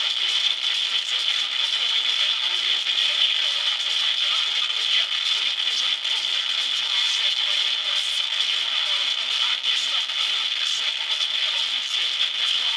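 Audio-modulated mini solid-state Tesla coil arcing continuously to an earth wire: a steady, loud hissing buzz with a strong high tone, and faint lower notes of the played music underneath.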